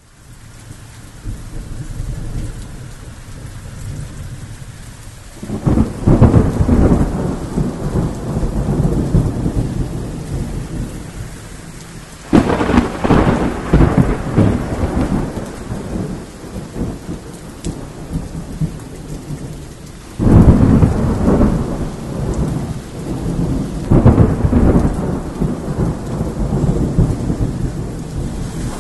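Thunderstorm: steady heavy rain with four sudden thunderclaps, about five, twelve, twenty and twenty-four seconds in, each rolling on for a few seconds.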